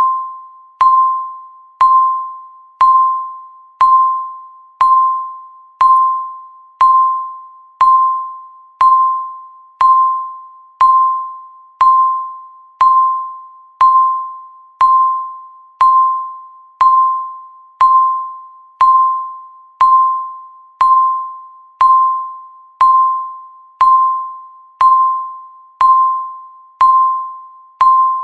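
Countdown timer's electronic tick: a short ringing ding, struck once every second and dying away before the next.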